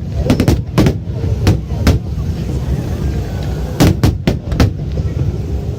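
Fireworks going off in a string of sharp bangs: several in the first two seconds, then a rapid cluster of about five bangs around four seconds in, over a steady low rumble.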